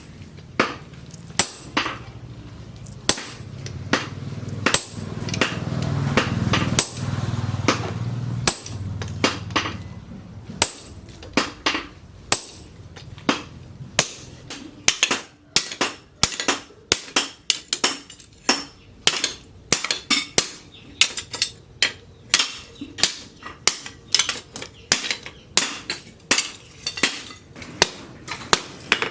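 Blacksmith's hammer striking steel on an anvil: a long series of sharp, ringing blows, about two to three a second and coming faster in the second half. A low hum swells in the middle and fades again.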